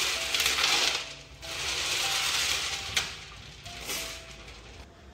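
Small shells being rubbed and stirred by hand in water in a large steel basin: rattling and scraping in bursts, with a sharp clack about three seconds in. A soft melody plays underneath and is left on its own near the end as the scraping stops.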